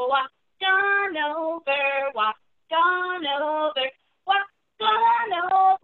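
A woman singing a children's action song without accompaniment, in short held phrases with brief silent pauses between the lines.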